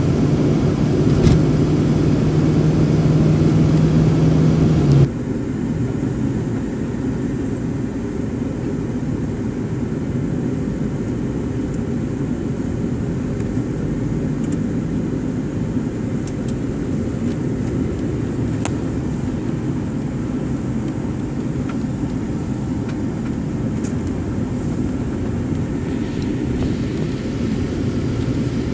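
Cabin noise of a moving car: a steady low rumble of engine and tyres. A louder steady low hum runs for the first five seconds or so, then cuts off suddenly and leaves a quieter, even rumble.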